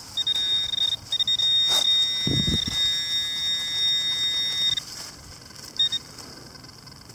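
Handheld metal-detecting pinpointer sounding a steady high-pitched tone for nearly five seconds, broken once about a second in and followed by a short blip near six seconds: the probe is over a metal target in the dirt, here a Civil War canister shot. A dull bump of handling comes about two seconds in.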